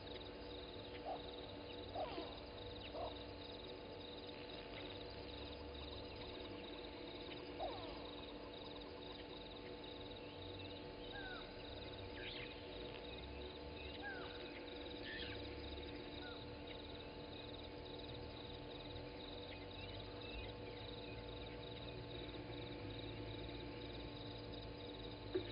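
Early-morning African bush ambience: scattered short bird calls and quick chirps over a steady background hum.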